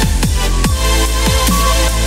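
Electronic music backing track with a heavy, steady bass and a regular beat of drum hits that fall in pitch.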